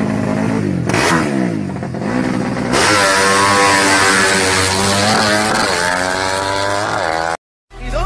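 Motorcycle engine running, its pitch dropping and rising again as it is throttled back and revved. About three seconds in a loud rushing hiss joins it, and the sound cuts off suddenly near the end.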